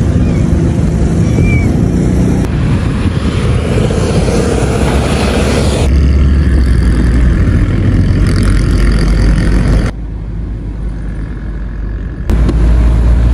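Street and traffic noise, then road noise from inside a moving car: a heavy low rumble with a rush of passing traffic. The sound changes abruptly several times, at cuts.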